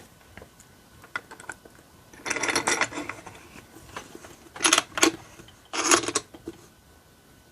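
Metallic clicking and rattling from a Schlage Primus lock core and lock-picking tools being handled, in four short bursts about two, four-and-a-half, five and six seconds in.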